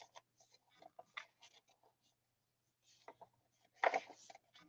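Paper rustling and light clicks as a small paper booklet tucked into a handmade journal is handled, then a journal page is turned about four seconds in; the page turn is the loudest sound.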